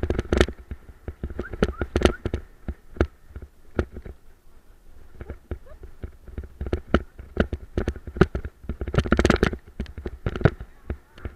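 Bulla dog-training cart rattling and jolting over a rough dirt trail behind a running two-dog team, giving dense, irregular clicks and knocks from the frame and wheels, heaviest about nine seconds in.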